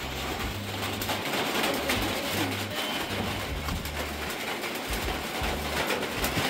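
Rain falling steadily, an even hiss, with an uneven low rumble underneath.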